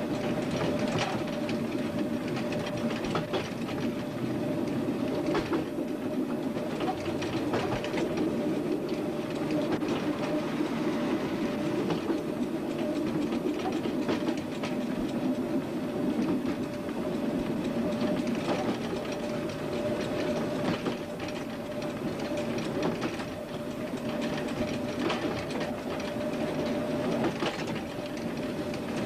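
Train running along the track, heard from inside the leading vehicle: wheels click over rail joints every second or two, over a steady running rumble and hum.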